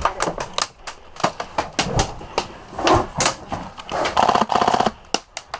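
Airsoft gunfire: a rapid full-auto burst about four seconds in, among scattered sharp clicks and knocks.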